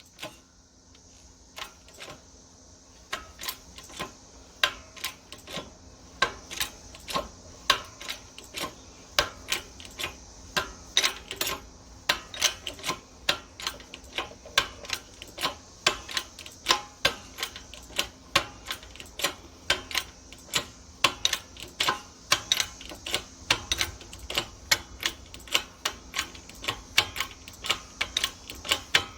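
Repeated sharp clicks or taps: a few scattered ones at first, then from about three seconds in a fairly steady run of about two to three a second.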